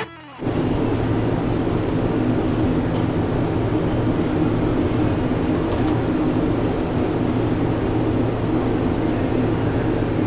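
Steady exhibition-hall background din with a constant low hum, and a few faint ticks.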